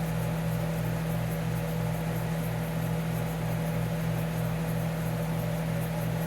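Montgomery Ward dehumidifier running with its compressor on: a steady low hum with a regular throb about three times a second. The compressor is running normally, pulling the coil cold enough to frost.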